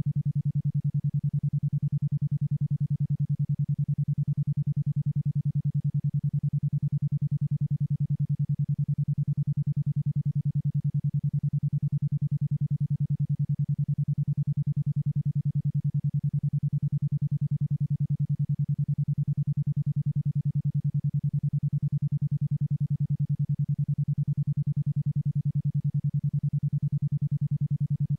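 A 10.2 Hz isochronic tone: a single low tone switched on and off in rapid, even pulses, about ten a second.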